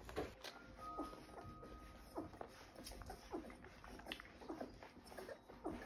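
Nursing golden retriever puppies squeaking and whimpering faintly, a scattered string of short, high squeaks.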